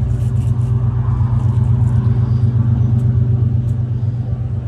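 Steady low rumble of an engine running close by, with a couple of faint clicks about three seconds in.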